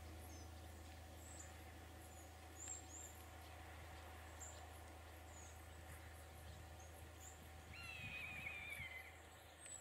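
Faint outdoor quiet with a low steady rumble, scattered short high bird chirps, and one drawn-out call falling in pitch about eight seconds in.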